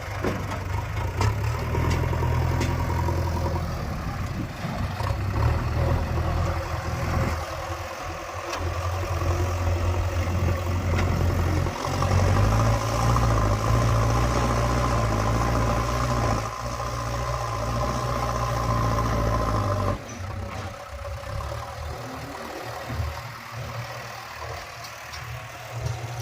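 Diesel engine of heavy earth-moving machinery running and working, a steady low drone that swells and eases with load. About twenty seconds in it drops sharply in level and runs on more quietly.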